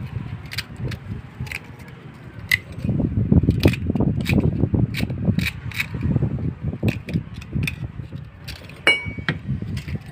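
Metal blade scraping and clicking irregularly inside the cylinder of a cast-iron hand well pump, working loose thick rust from a pump that has long sat unused.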